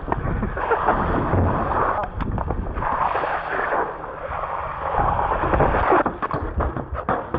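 Wind buffeting an action camera's microphone in uneven surges, over the rolling of a BMX bike on asphalt, with scattered knocks near the end.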